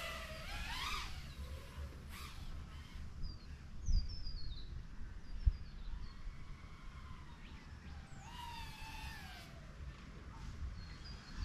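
A 3-inch FPV quadcopter's BrotherHobby 1504.5 3950kv motors whining, the pitch rising and falling with throttle, strongest at the start and again about eight to nine seconds in. Small birds chirp around three to four seconds in. Two short thumps come about four and five and a half seconds in, over a steady low wind rumble.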